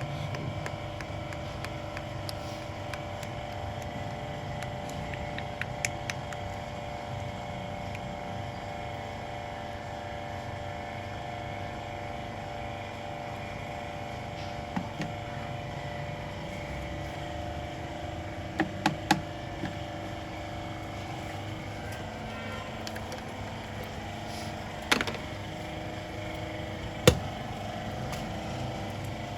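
An engine running steadily, with a few sharp metallic clicks and knocks, a quick cluster of them near the middle and the loudest near the end.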